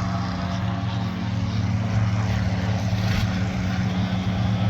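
Propeller aircraft engine running steadily at a constant pitch.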